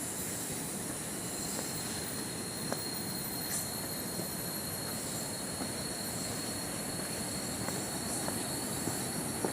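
Steady rushing of a waterfall, not yet close, with insects singing in a steady high tone above it and a few faint ticks.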